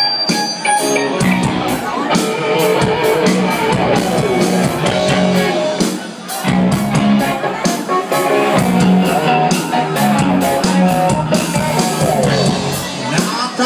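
Live rock band playing: a singer over electric guitar, bass guitar and a drum kit keeping a steady beat.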